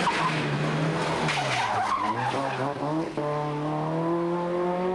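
Peugeot rally car running hard through a tight bend: engine off the throttle and dipping in pitch, with tyre scrub on the tarmac, then the engine revving up steadily as it accelerates away from about three seconds in.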